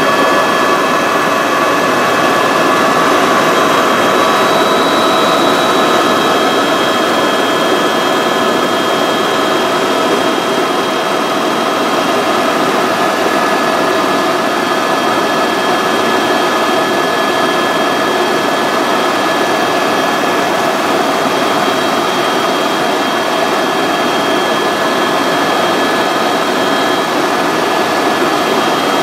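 Helicopter turbine engine and rotor noise in steady cruise, heard from inside the cabin: a steady rushing drone with a constant high whine laid over it.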